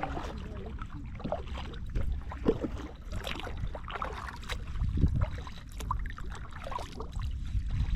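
Water splashing and lapping around a fishing kayak at irregular moments, over a constant low rumble of wind on the microphone.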